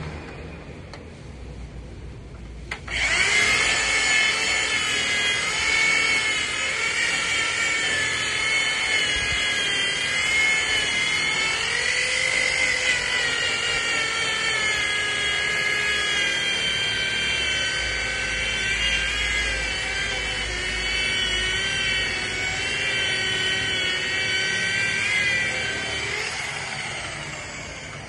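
Corded electric rotary polisher buffing a boat hull: its motor starts with a sudden whine about three seconds in and runs with a pitch that wavers as the pad is worked against the hull, then dies down near the end.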